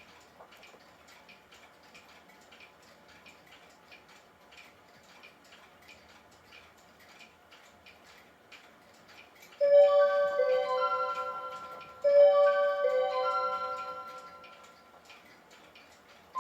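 Clocks ticking faintly, then, about ten seconds in, a Seiko Melodies in Motion wall clock sounds its electronic hour chime: two loud phrases of descending tones, each ringing out and fading.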